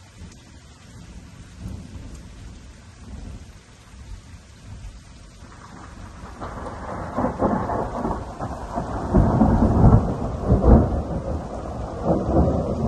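Thunder rumbling low at first, then swelling about halfway through into a long, loud roll with several peaks, over steady rain.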